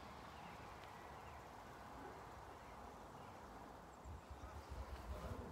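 Quiet outdoor ambience, close to silence: a faint steady background hiss, joined about four seconds in by an irregular low rumble.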